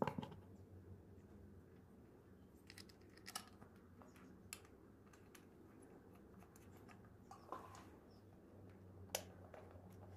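A few faint, scattered clicks and taps of a metal valve inspection cover being handled and fitted back onto a Suzuki DR650 cylinder head, over a low steady hum.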